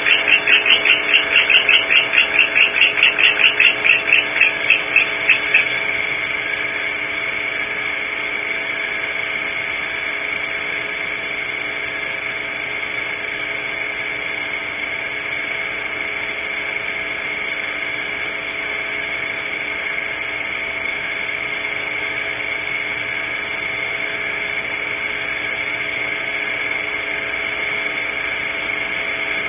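A rapid run of short, high calls, several a second, growing weaker and stopping about five and a half seconds in. After that there is a steady hiss with a faint hum.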